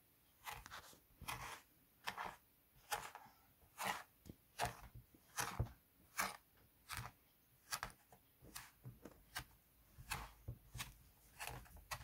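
A thin stick poking and scraping through moldable play sand on a plastic tray: a run of short, uneven scraping strokes, roughly two a second.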